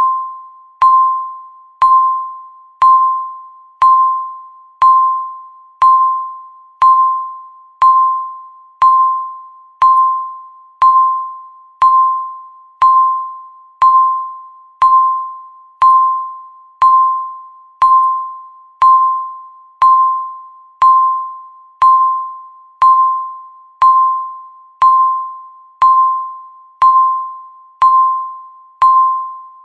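Countdown timer beeping once a second, marking each second left. Each beep is a single clear tone that starts sharply and fades away before the next.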